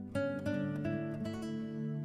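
Background music on acoustic guitar: chords struck and left to ring.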